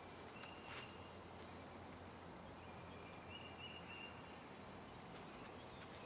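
Quiet outdoor ambience with a faint steady low hum: a bird gives short, thin, high calls twice, and a single light footstep or knock sounds near the start.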